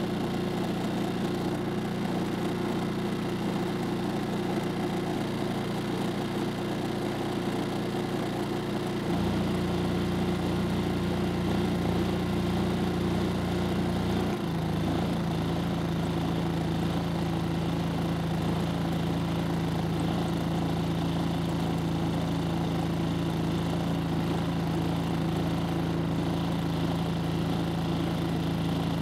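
Yamaha EF3000iSE inverter generator's single-cylinder engine running steadily while powering electric heaters under a load test. About a third of the way in the engine note steps up. A few seconds later it drops back and settles at a slightly lower steady speed.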